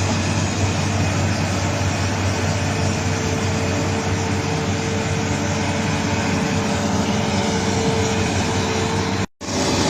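Heavy mining machinery running: a loud, steady diesel drone with a held tone through it, dropping out for an instant near the end.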